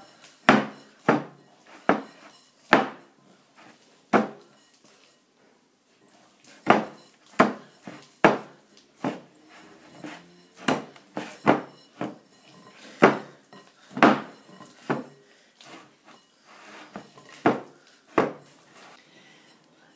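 Glass mixing bowl knocking and clinking as shortcrust pastry dough is kneaded by hand inside it: irregular sharp knocks, about one or two a second, with a pause of about two seconds around five seconds in.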